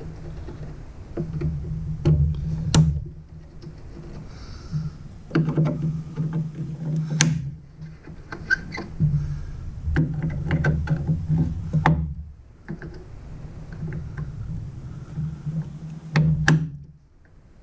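Scattered clicks and scrapes of a screwdriver and wires being worked at the terminal screws of a plastic electrical enclosure as wiring is disconnected, with several stretches of low rumbling from rubbing and handling.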